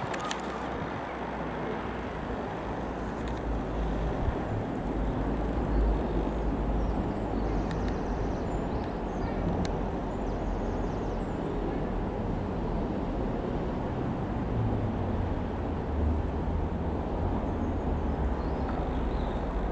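Comco Ikarus C-42 FB100 light aircraft's Rotax 912 piston engine and propeller droning steadily as it passes overhead, with wind rumbling on the microphone.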